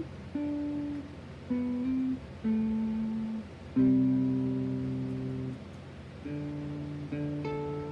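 Electric guitar played through a clone of the Zvex Machine crossover-distortion pedal: a slow run of single plucked notes, each fading away. The loudest and longest note comes about four seconds in.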